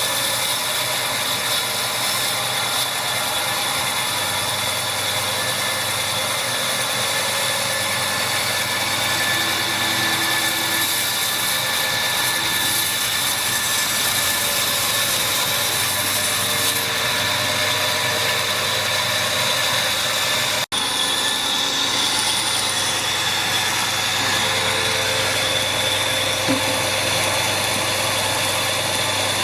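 Steady machine noise, a motor running continuously, broken by a sudden momentary dropout about two-thirds of the way through.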